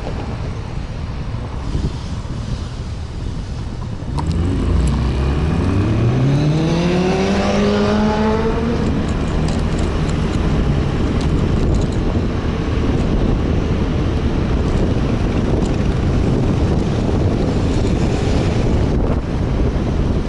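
Suzuki Address 125 scooter's single-cylinder engine pulling away from a stop about four seconds in, its pitch rising for a few seconds and then holding steady. After that comes a steady rush of wind on the microphone and road noise while cruising.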